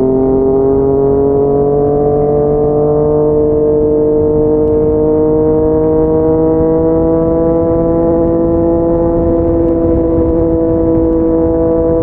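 Yamaha MT-09's three-cylinder engine running through a Yoshimura R55 slip-on exhaust, held steadily in one gear. Its pitch creeps up slowly as the bike gains speed, then levels off for the last few seconds.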